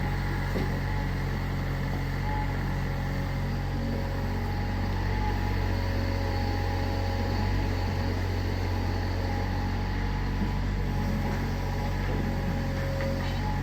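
Mini excavator's diesel engine running steadily at an even pitch, with no letup.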